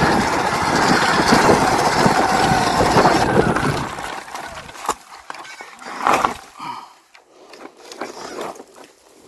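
Electric dirt bike being ridden fast on a dirt trail: loud rushing wind and tyre noise that drops away about four seconds in as the bike loses power and rolls to a stop, followed by a few faint clicks and rustles. The controller has faulted out because the e-bike battery's voltage sagged too low under load.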